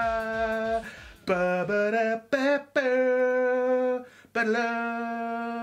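Outro music: a low drum beat drops out about two seconds in, leaving a voice singing long held notes, one after another with short breaks between them.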